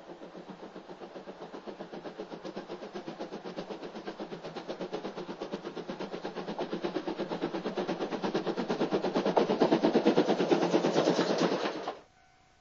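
JNR Class C12 steam tank locomotive C12 66 working under steam, its exhaust chuffing in a rapid, even beat that grows louder as it approaches. The sound cuts off suddenly near the end.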